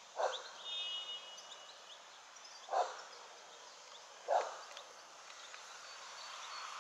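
A dog barks three times, each bark short and sharp, the barks a second and a half to two and a half seconds apart, over a steady outdoor hiss.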